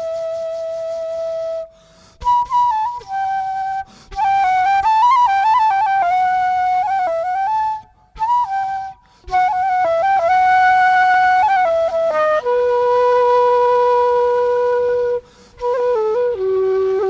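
Background music: a single woodwind melody, flute-like, with long held notes, stepping runs and short pauses between phrases.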